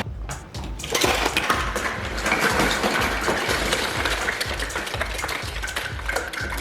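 Background music with a steady low beat, with scattered clicks and clinks over it.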